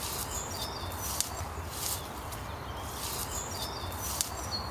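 Woodland birds singing in the background, a scatter of short high chirps and whistled notes, over a steady low rumble.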